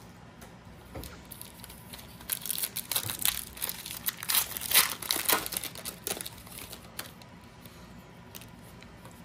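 A foil trading-card pack wrapper being torn open and crinkled. It is a dense crackle of many quick strokes from about two seconds in to about six seconds, loudest near the middle. Then a few light clicks follow as the cards are slid and fanned.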